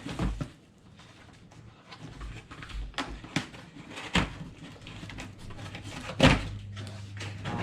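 Plastic aquarium lid and its packaging being handled: scattered clicks and knocks, the loudest a little past six seconds, followed by a low steady hum.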